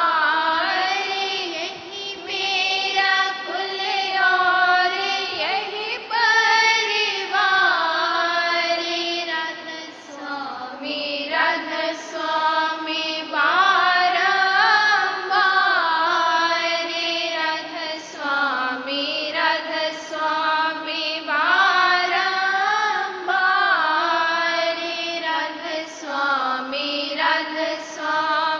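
Voices singing a Radhasoami devotional hymn (shabd) in a chant-like melody that slides and bends in pitch, with no break.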